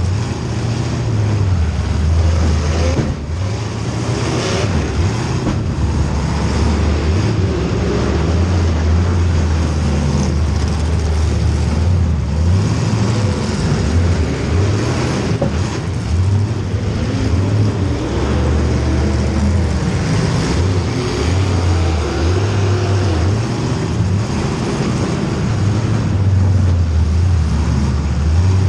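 Race car engine running hard throughout, its pitch stepping up and down over and over as the throttle is opened and lifted, under a steady wash of noise.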